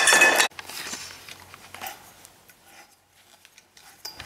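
Aluminium tubing being handled: a short, loud metallic scrape with a high ringing that cuts off sharply about half a second in, followed by faint light clicks and knocks.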